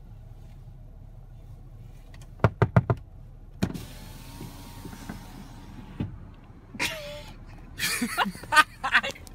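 Car's electric power window motor running for about two seconds, after a quick run of four sharp clicks. Near the end a man laughs in short bursts.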